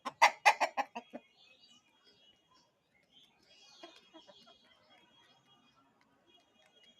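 Chicken calling: a quick run of about six loud clucks in the first second or so, then a few faint calls about four seconds in.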